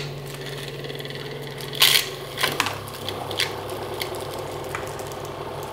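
Candy floss maker's motor humming steadily while crushed mint humbug sweets are dropped into its spinning head, giving sharp clicks and rattles, the loudest about two seconds in.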